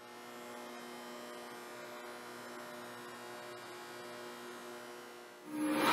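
Steady electrical hum of several tones, like shipboard machinery, holding unchanged; in the last half second it swells quickly upward.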